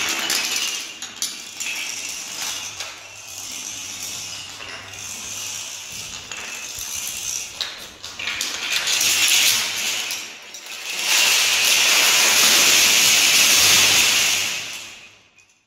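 Thousands of wooden Kapla planks clattering as they topple in a chain reaction, swelling into a long, loud crash of collapsing plank towers from about eleven seconds in, then dying away near the end.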